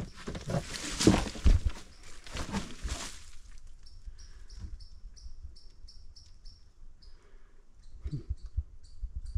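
Footsteps crunching through dry leaf litter and brush for about three seconds, then a small bird calling a quick series of short, high chirps, about three a second. A few more footsteps come near the end.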